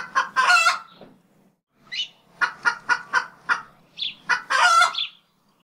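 Domestic poultry calling: a longer call, then a run of short clucks about four a second, then another longer call.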